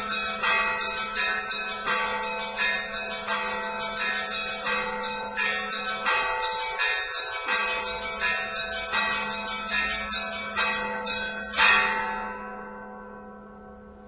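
Orthodox church bells ringing in a quick, even peal, several bells struck together about one and a half times a second. The peal ends on one loud final strike near the end and rings away.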